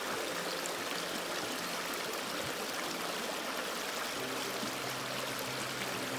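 A small rocky stream running over stones and a shallow riffle: a steady rush of water.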